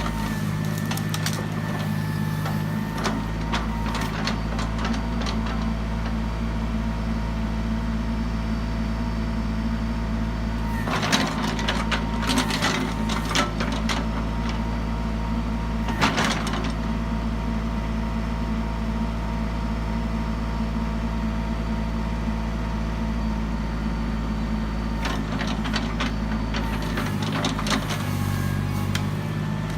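Kubota L39 tractor's diesel engine running steadily at a constant pitch. Bursts of sharp knocks and clatter come about eleven to thirteen seconds in and again about sixteen seconds in.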